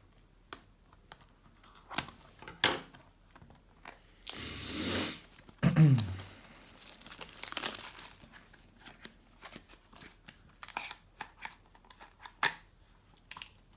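Cellophane wrapping and packaging of a sealed trading-card box being torn open and crinkled, with scattered sharp crackles and a short falling squeak about six seconds in.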